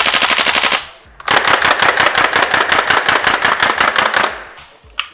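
WE/Cybergun Thompson M1A1 gas-blowback airsoft rifle firing on full auto, its bolt cycling in a rapid, even clatter. A short burst ends about a second in, and a longer burst of about three seconds follows, then a single click near the end.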